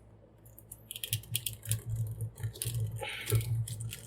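Hard plastic parts of a toy figure clicking and scraping as a wing piece is pushed and worked into a tight socket, a string of short sharp clicks starting about a second in.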